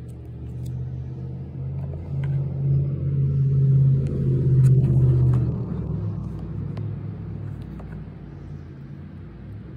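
Domestic cat purring close to the microphone: a steady low rumble that swells to its loudest around the middle and then eases off.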